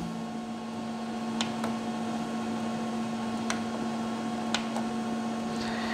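HP Laser MFP 135wr laser printer humming steadily as it warms up after being switched on. Four light clicks come from its control-panel buttons being pressed.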